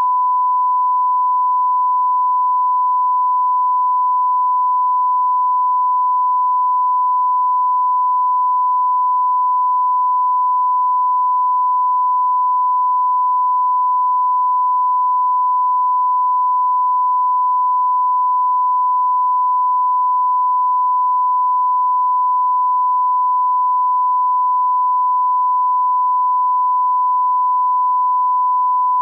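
Continuous 1 kHz test tone: a single pure, unchanging electronic pitch held at a constant, loud level.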